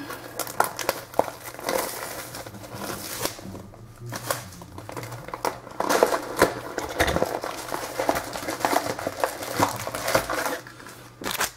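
Plastic and foil wrapping crinkling and tearing in irregular handling noises as a box of trading-card packs is opened, with a low steady hum underneath.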